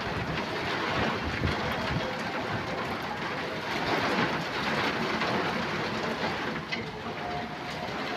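Steady rain falling on a brick-paved rooftop: an even hiss that stays level throughout.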